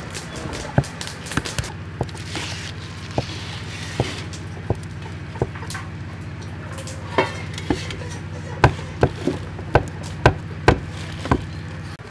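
Knife blade knocking on a wooden chopping board as blocks of congealed pig blood are sliced, single knocks at irregular intervals that come faster, about two a second, in the last few seconds. A steady low hum runs underneath.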